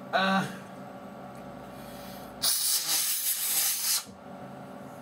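Air blown hard through a laptop heatsink's fan vent to clear out dust and fluff. It makes a single hiss about a second and a half long, starting halfway through.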